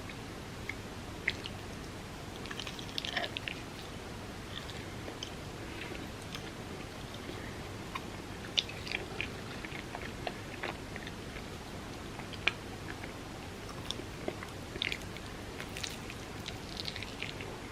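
Close-miked eating: a person chewing and biting, with scattered small crunchy crackles and clicks over a steady low hiss.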